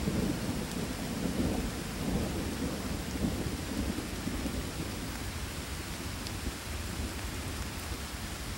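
A thunderstorm: steady rain with a low rumble of thunder that slowly dies away.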